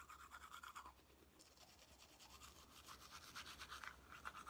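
Teeth being brushed with a manual toothbrush: faint, quick back-and-forth scrubbing strokes in a steady rhythm.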